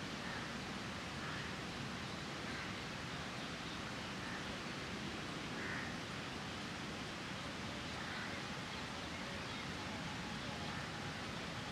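Steady outdoor background hiss, with a few faint, brief sounds every second or two.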